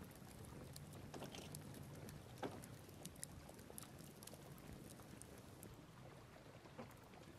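Faint crackling and popping of a wood campfire: scattered small pops and snaps over a low steady rumble, one pop slightly louder about two and a half seconds in.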